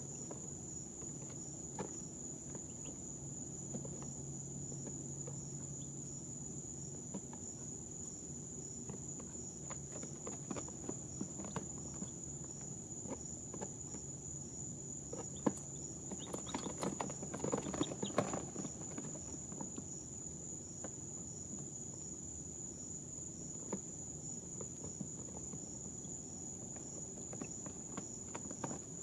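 Baby chicks shuffling and pecking in their brooder: scattered soft taps and scratches, busiest about sixteen to eighteen seconds in, over a steady high-pitched whine and a low hum.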